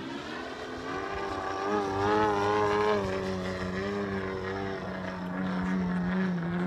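Small propeller airplane in flight, its engine and propeller droning steadily overhead; the pitch rises about a second in, wavers as it gets louder midway, then settles.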